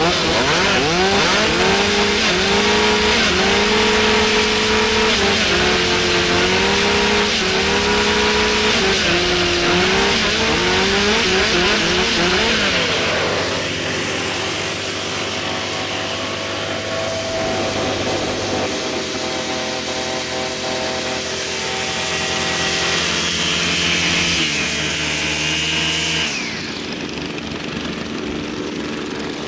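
Several two-stroke engines running at once: chainsaws, a backpack leaf blower and a string trimmer. For the first dozen seconds the chainsaws are revved up and down together in a rhythmic pattern. The engines then run more steadily, and about three seconds before the end the sound drops as some of them stop.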